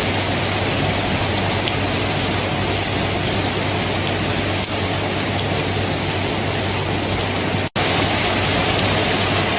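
Steady heavy rain, an even hiss of drops with no separate strikes standing out. It cuts out for a split second about three-quarters of the way through, then resumes unchanged, as at a loop join.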